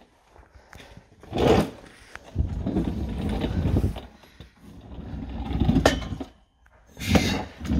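Shuffling and scraping of a person turning round while lying on the floor under a car, in several rough bursts about a second long with short quiet gaps.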